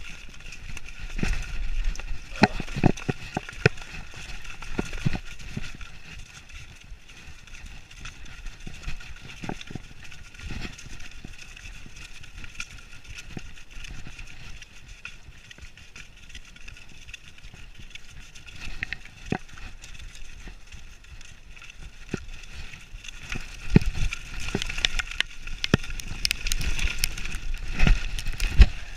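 Mountain bike ridden fast along a leaf-covered dirt singletrack: a steady rush of riding noise with frequent rattles and knocks from the bike over bumps. The knocking is busiest over the first few seconds and again near the end.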